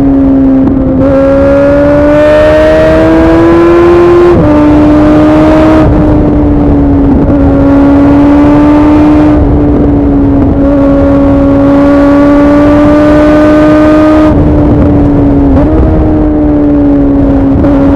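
Suzuki Bandit 650's inline-four engine through a MIVV aftermarket exhaust, pulling under load on the move. The note climbs gently, drops sharply about four seconds in, then holds fairly steady with brief dips in pitch.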